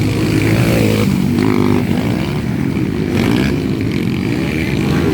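Engines of 200 cc motocross bikes racing, revving up and down with changing pitch.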